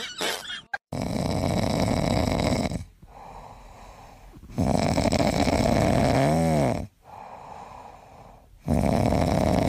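A ginger cat snoring in its sleep: three long, loud snores about four seconds apart, with quieter breathing between them.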